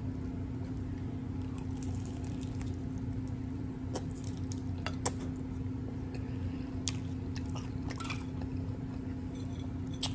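Close-miked eating of a hard-shell taco, with scattered short, sharp crunches and wet chewing sounds over a steady low hum.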